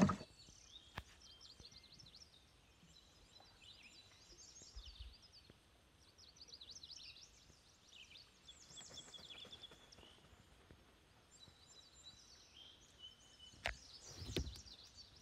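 Songbirds chirping and trilling on and off, quietly. A couple of faint clicks and a soft thump come near the end.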